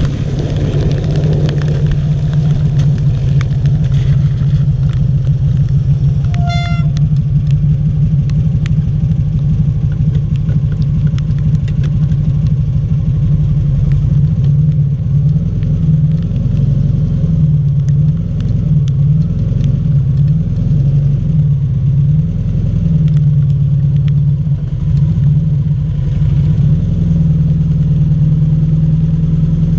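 Rewaco trike engine running at low revs, its low note wavering up and down with the throttle. A short high beep sounds once about six and a half seconds in.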